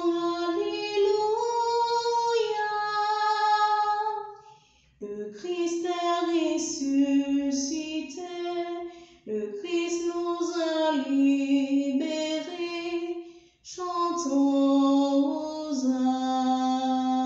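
A woman's voice singing an Easter resurrection hymn melody in four phrases of about four seconds each, with short breaks between them.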